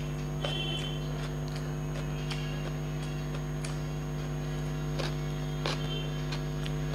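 Eating sounds of a person eating rice and curry by hand: a few scattered soft clicks and smacks of chewing and mouthfuls, over a steady low electrical hum that is louder throughout.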